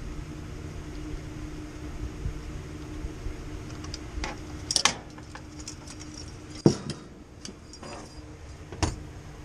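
Metal parts and tools clinking and clanking as they are handled, a few sharp knocks with the loudest about two thirds of the way through, over a steady low mechanical hum.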